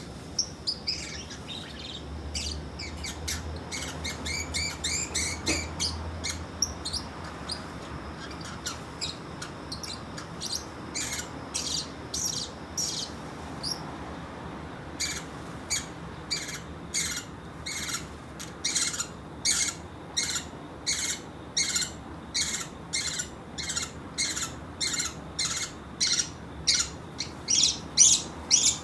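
A pet Pacific parrotlet calling: a string of varied short chirps at first, then from about halfway a steady run of sharp, repeated calls, roughly two a second, that grow louder toward the end.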